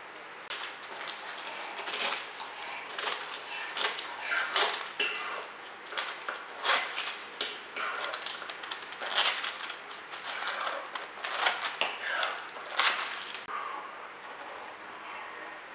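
Scissors snipping through a sheet of baking paper in a string of short, irregular cuts, with the paper crinkling between them.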